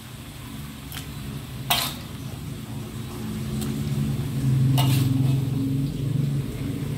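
A metal spatula clinks a few times against a wok and glass bowl as stir-fried bamboo shoots are served out, with two louder clinks. A low droning hum, like an engine, swells under it through the middle.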